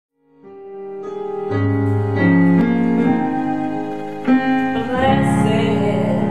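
Electronic keyboard in a piano voice playing an introduction, starting a moment in: sustained chords, with low bass notes entering about a second and a half in.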